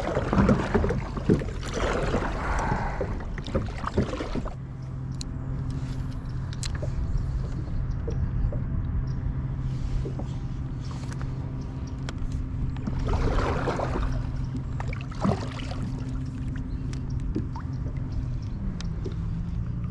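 Wind and water noise around a kayak, with scattered small clicks and knocks, and a steady low hum that sets in about four seconds in.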